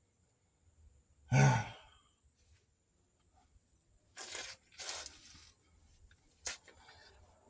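A man's short strained grunt while working a stuck part. Later come two brief rushing noises and one sharp click.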